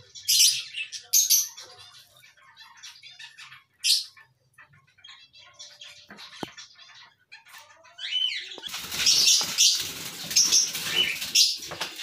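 Lovebirds chirping, with sharp, loud high-pitched calls in short bursts, then from about nine seconds in a louder, dense stretch of calling.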